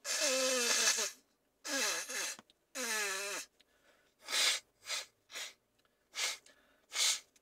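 A person sneezing hard three times in quick succession, each sneeze loud and voiced with a falling pitch. Five short, breathy bursts follow.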